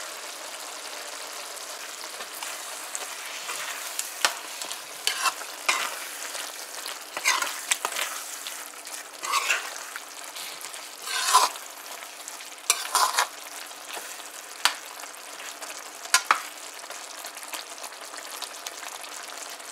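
Metal spoon stirring a thick squash and chicken curry in a frying pan, scraping against the pan in about a dozen irregular strokes, over the steady sizzle of the simmering curry.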